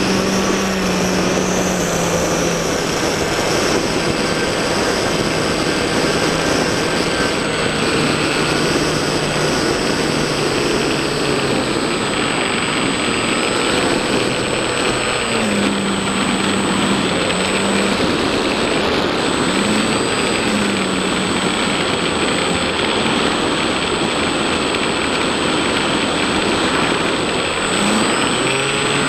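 Small electric RC plane's motor and propeller droning in flight, with wind rushing over the onboard camera's microphone and a steady high whine above it. The motor's pitch dips and rises briefly a few times midway and again near the end as the throttle changes.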